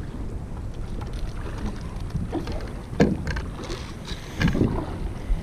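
Wind rumbling on the microphone, with a few knocks and clicks of gear against the paddle boards. The loudest knock comes about three seconds in, with another about a second and a half later.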